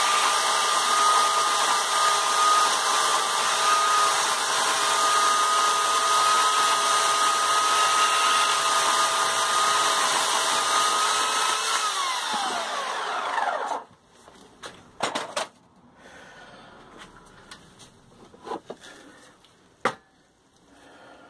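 Electric chainsaw running steadily with a high motor whine as it finishes a cut through a log. It is switched off about twelve seconds in and winds down with a falling whine. A few sharp knocks follow as the cut wood is handled.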